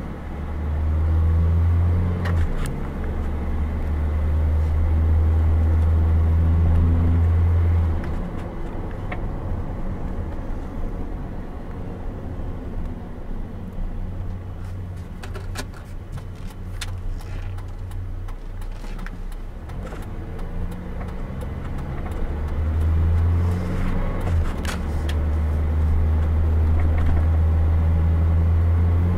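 2001 Chevrolet S10 pickup being driven, heard from inside the cab: engine hum with road noise. It is loud while pulling away in the first eight seconds and again from about 22 seconds, each time with a brief break. In between it is quieter, with a few light clicks, where the truck slows for a stop sign.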